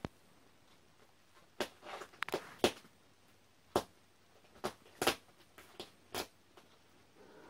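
A cat shifting about on top of a storage box, making about nine short, irregular taps and scuffs over a few seconds, with no meowing.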